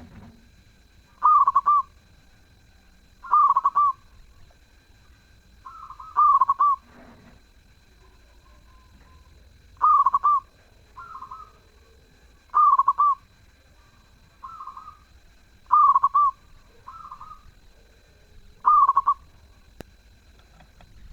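Zebra dove (perkutut) cooing: seven loud, short rolling coo phrases repeated every two to three seconds, with a few fainter coos between them.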